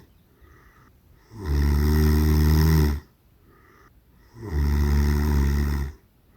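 Two loud, low snores, each about a second and a half long, one starting about a second and a half in and the other about four and a half seconds in, in a grunting, pig-like pattern. A snore like this may be due to excess fat compressing the airway.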